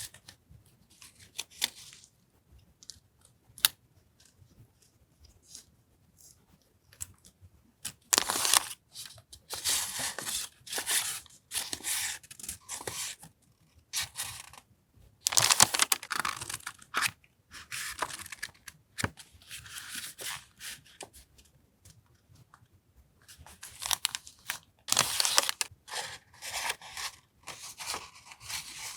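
Paper journaling supplies and their packaging being handled. Several separate bursts of rustling and tearing, the longest about two seconds, with soft clicks between.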